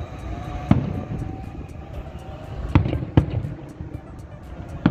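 Aerial firework shells bursting: four booms, one about a second in, two close together near the three-second mark, and one at the end.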